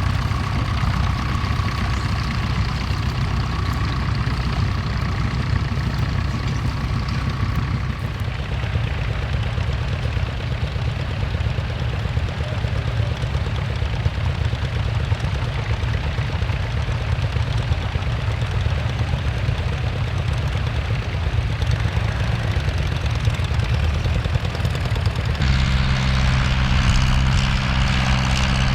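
Tractor engines running steadily at work ploughing. A thin high whine in the mix stops about eight seconds in, and a few seconds before the end a louder engine with a steady, deep droning pitch takes over.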